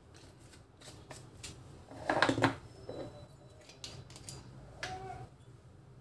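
Light kitchen handling sounds: a plastic spice shaker shaken and set down, and a glass vinegar bottle picked up, with small clicks, taps and rustles. A louder brief sound comes about two seconds in.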